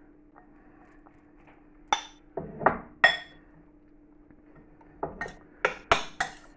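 A spoon clinking and scraping against a bowl while stirring the stuffing mixture: a few sharp knocks about two to three seconds in, then a quick run of five near the end. A faint low steady hum runs underneath.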